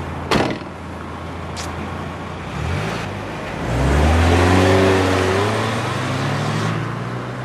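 A car door shuts with a thump about half a second in over an idling car engine. The engine then revs up and the car pulls away, loudest a little past the middle and easing off near the end.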